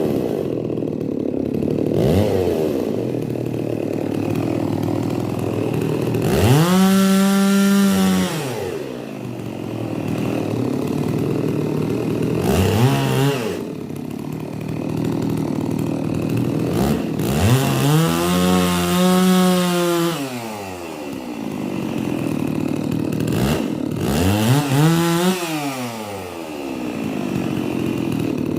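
Holzfforma G660 two-stroke chainsaw repeatedly revving up to a high, held pitch for a second or two and dropping back to a lower speed, about five times.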